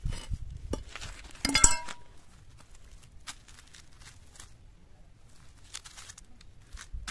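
A long-handled metal ladle clinks sharply against a concrete slab about one and a half seconds in and rings briefly, after some low handling bumps. Then come a few faint rustles and ticks.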